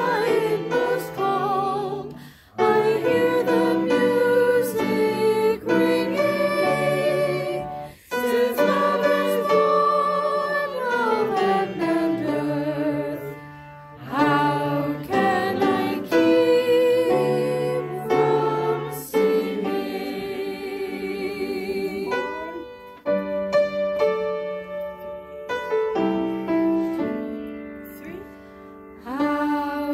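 Church choir singing a hymn in four-part harmony with piano accompaniment, one singer's voice close by. The singing breaks briefly between phrases and is softer in the last several seconds.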